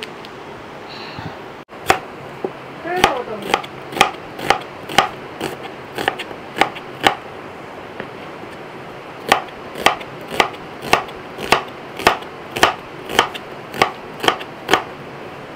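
Kitchen knife chopping a red onion on a plastic cutting board: sharp, even knocks about two a second, with a short pause near the middle.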